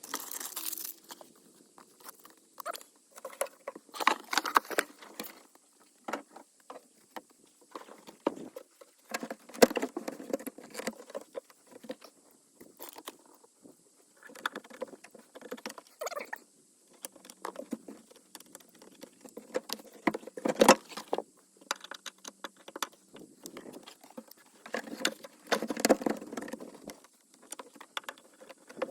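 Irregular hand-work noises of sound-deadening mat being fitted to a pickup cab's back wall: light taps, rustling and scraping, with a few louder knocks.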